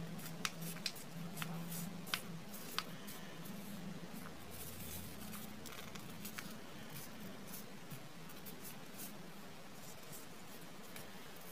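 Small origami paper being folded and creased by hand: soft rustling with sharp crinkly clicks, most of them in the first three seconds, then quieter handling.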